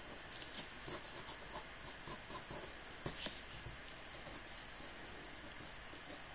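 Ink pen scratching across paper in quick short strokes: a run of strokes in the first couple of seconds, one louder stroke about three seconds in, then fainter scratching.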